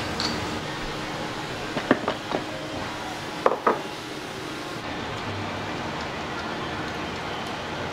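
Small ceramic bowls knocking and clinking as they are handled and set down, a few sharp knocks in the first half, over a steady kitchen hiss.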